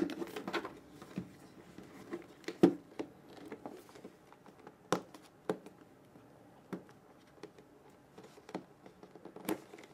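Hands handling a printed cardboard product box, fingers picking and scratching at its edge and tape seal, giving scattered light taps, scrapes and clicks.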